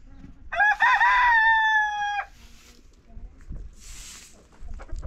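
A rooster crows once, a long cock-a-doodle-doo starting about half a second in. It is followed by a few brushy swishes of a straw broom sweeping a dirt yard.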